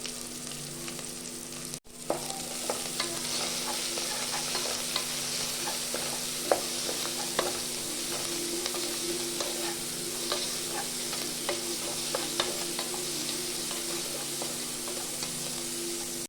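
Onions, green chilli and curry leaves sizzling in hot oil in a pressure cooker, stirred with a spoon that scrapes and clicks against the metal pot. The sound breaks off briefly about two seconds in.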